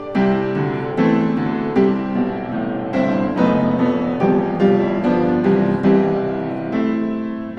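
Background piano music, a gentle melody of struck notes played over chords.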